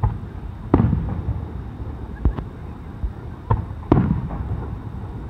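Fireworks shells bursting: about six sharp booms, each trailing off in an echo, the loudest about a second in and about four seconds in.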